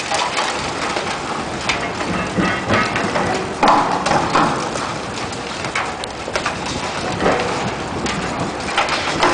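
Demolition work on a concrete tower: a steady rushing hiss with irregular crunches, knocks and crackles, louder for a moment about four seconds in.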